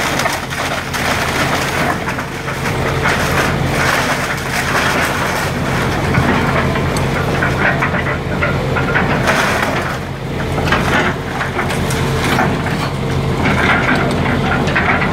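Volvo tracked excavator's diesel engine running steadily under load as its bucket tears into a wood-frame house, with framing lumber cracking and splintering and debris crashing down again and again.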